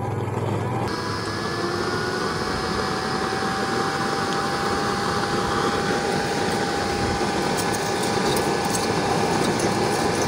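Forced-air used-oil blue-flame burner running: a steady rushing noise with a steady whine, growing fuller and a little louder about a second in as the flame settles from yellow into blue.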